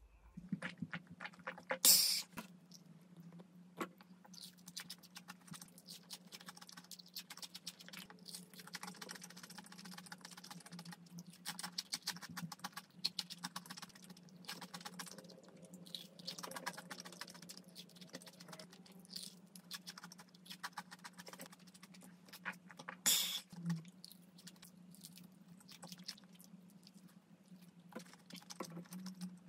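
Crispy fried chicken being handled and eaten: a dense, faint run of crackles and clicks from the crunchy coating as pieces are picked up, dipped and chewed. Two louder sharp noises come through, one about two seconds in and one later. A low steady hum runs underneath.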